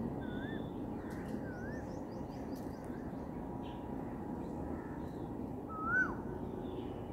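Birds calling: a short rising-and-falling chirp repeated about once a second for the first two seconds, then a louder swooping call that rises and drops sharply about six seconds in, over steady low background noise.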